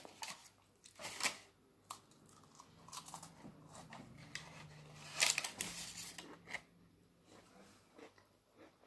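A crisp biscuit crunching as it is bitten and chewed, with scattered crackling bites, the loudest about five seconds in.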